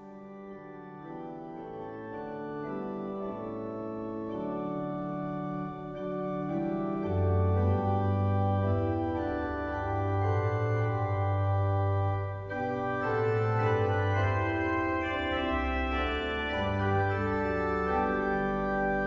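Organ music playing slow, held chords, fading in at the start, with deep bass notes coming in about seven seconds in.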